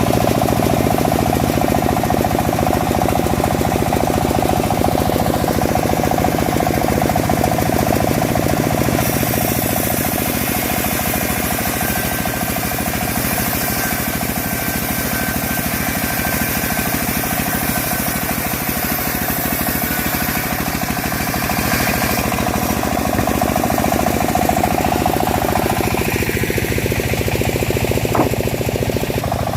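Engine-driven homemade bandsaw mill running steadily while it saws a teak log. A higher hiss joins about a third of the way in and fades about two-thirds through, and near the end the machine's tone drops in pitch.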